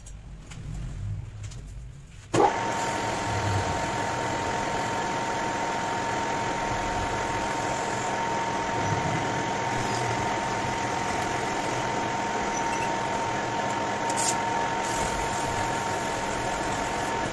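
Metal lathe starting up sharply about two seconds in, then running steadily with a constant whine. A strip of abrasive cloth is held against the spinning turned bearing housing to polish it, adding a hiss.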